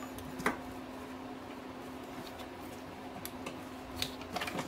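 Hands working at an ATV carburetor while loosening its top: one sharp click about half a second in and a few light clicks near the end, over a steady low hum.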